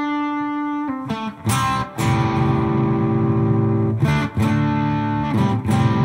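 Fender Telecaster electric guitar through an Xotic SP Compressor into a Mooer Hustle Drive overdrive, into a Fender '65 Deluxe Reverb amp. One long held note, then a few short notes and overdriven chords ringing a second or two each. The compressor ahead of the drive gives the notes a little more sustain.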